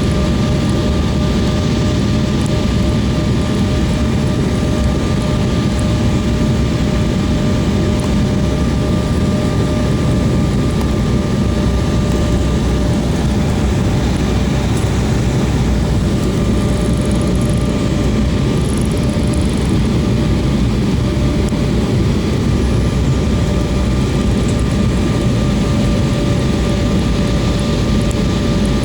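Steady cabin noise of an airliner in flight during the descent before landing: a constant low engine-and-airflow roar with a thin steady whine over it.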